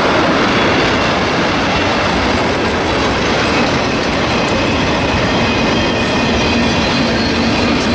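Freight train cars (tank cars, boxcars and flatcars) rolling past, a steady loud noise of steel wheels on rail. A faint steady tone joins about six seconds in.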